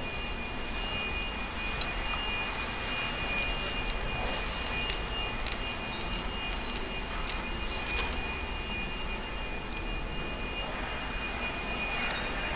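Steady background rumble and hiss with a faint high tone, and a few light metallic clicks as a brass ferrule is worked onto the cut end of a stainless-braided Teflon hose by hand.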